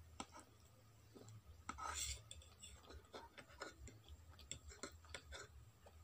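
Metal fork clinking and scraping on a ceramic plate while gathering noodles: a scatter of faint small clicks, with a louder scrape about two seconds in.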